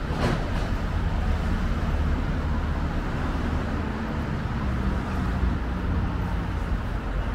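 Road traffic on a town street: a steady low rumble of cars passing, with one sharp tap just after the start.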